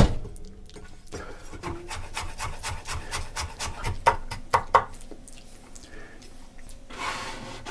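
Chef's knife mincing garlic on a wooden cutting board: quick taps of the blade on the wood, several a second, thinning out after about five seconds, then a short scrape near the end.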